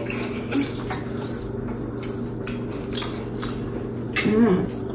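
Scattered light clicks and clinks of cutlery against dishes while eating, over a steady low hum. A brief voice sounds near the end.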